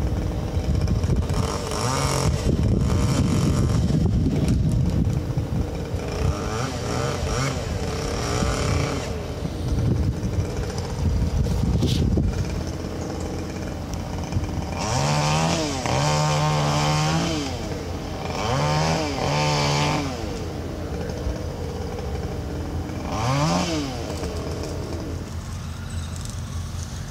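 Chainsaw running throughout, revved up several times in short bursts with quickly rising pitch, mostly in the second half.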